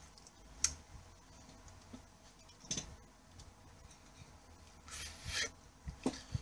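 Sparse handling noises from signing hands and clothing: a sharp click a little under a second in, another near three seconds, a brief rustling rub about five seconds in, then a few soft knocks near the end.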